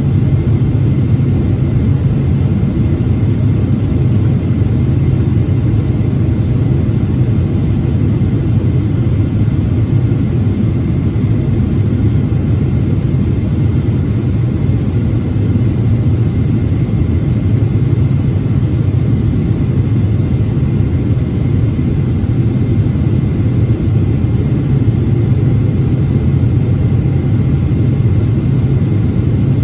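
Cabin noise inside a Boeing 777-300ER descending on approach: a steady low rumble of its GE90-115B turbofan engines and the airflow past the fuselage, with a faint steady high whine.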